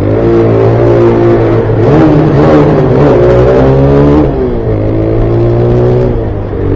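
Motorcycle engine and exhaust revving hard while riding, shown off as a sound check of the modified bike. The revs climb soon after the start, rise highest in the middle and fall back about four seconds in, then hold and drop again near the end.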